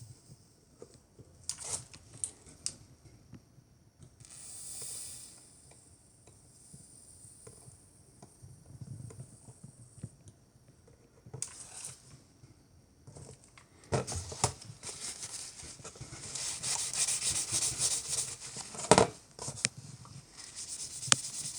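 Small clicks and scrapes of tools and solder wire being handled on a bench. Short hissing spells, the longest about three-quarters of the way through, are TS81 flux sizzling and crackling under the hot soldering iron on stainless steel.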